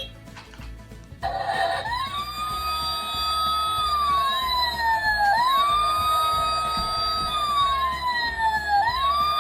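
Electronic siren wailing: each cycle rises quickly, holds high, then slides slowly down, about every three and a half seconds. It starts about a second in.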